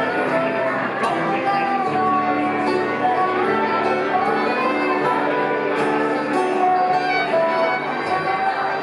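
Acoustic bluegrass band playing live: fiddle carrying held, bowed melody notes over picked banjo and strummed acoustic guitar.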